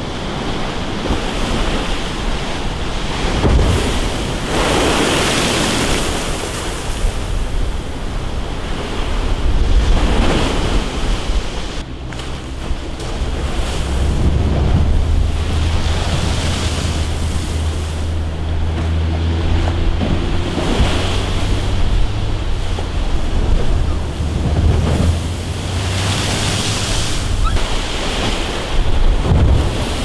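Rough sea waves breaking and washing ashore, surging every few seconds, with wind buffeting the microphone as a low rumble.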